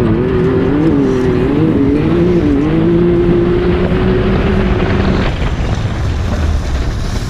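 Can-Am Maverick X3 Turbo side-by-side's turbocharged three-cylinder engine running hard while doing donuts, its pitch rising and falling with the throttle, then holding steady until it fades about five seconds in. Heavy wind and rumble noise on the microphone throughout.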